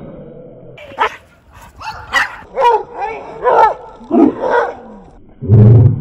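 Dog yipping and whining in a quick run of short, high calls, several a second, then a louder, deeper call near the end.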